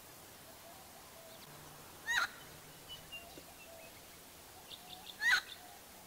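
Helmeted friarbird calling: two loud, brief calls about three seconds apart, with a few faint short notes between them.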